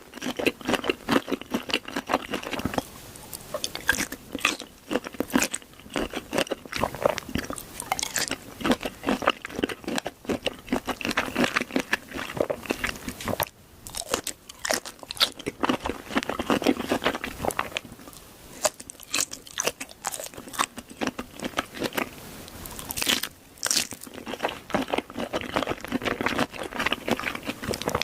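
Close-miked eating: a person biting into and chewing crunchy food, with dense, rapid crunches and short pauses about halfway through and again near the end.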